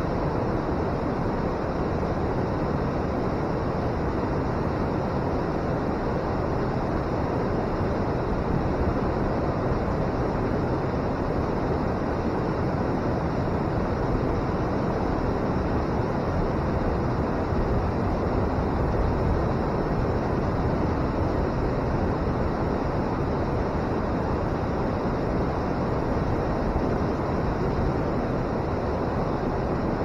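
Water pouring over a river weir and churning in the pool below: a steady, unbroken roar, heaviest in the low and middle range, with no changes.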